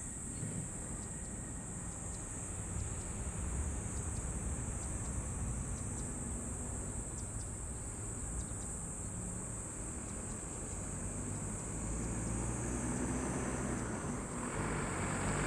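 Distant low rumble of an Airbus A320-232's IAE V2500 jet engines as the airliner rolls out along the runway after touchdown, growing louder near the end. Over it, a steady high buzz of insects.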